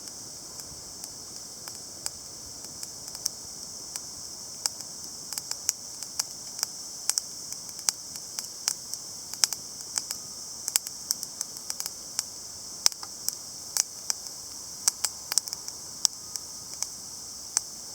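Wood fire burning in a chimney-style charcoal starter, crackling with sharp pops that come more often after about five seconds, over a steady high hiss.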